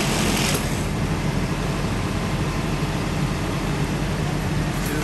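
Utility bucket trucks' engines idling steadily, a constant low drone, with a short hiss right at the start.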